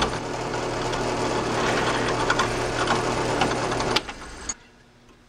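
Drill press running with a 5/16-inch twist bit cutting through a fence plate: a steady motor hum with scattered ticks from the cutting. There is a sharp click about four seconds in, and the sound stops abruptly about half a second later.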